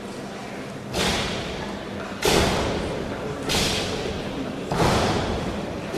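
A taekwondo team performing a pattern in unison, each synchronized technique landing as one sharp crack, four times about every 1.2 seconds, each ringing on in the hall.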